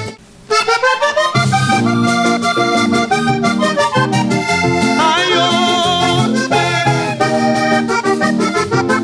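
Diatonic button accordion playing a lively vallenato introduction, starting after a brief pause, with an electric bass joining about a second later.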